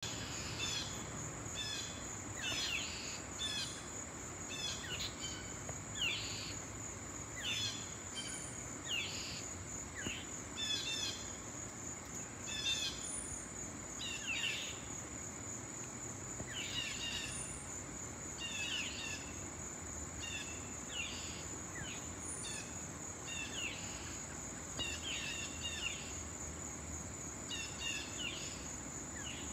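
Insects trilling steadily at a high pitch while birds give short, falling chirps again and again, over a faint low rumble.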